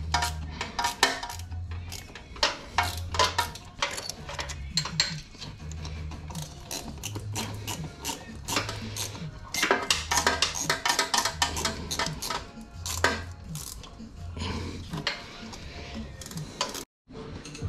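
Hand tools clinking and clicking against metal parts and bolts in a car's engine bay, irregular and fairly loud. Background music with a steady bass beat plays underneath.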